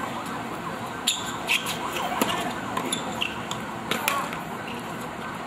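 Tennis balls struck by rackets and bouncing on a hard court: about half a dozen sharp pops between one and four seconds in, over a steady background hiss.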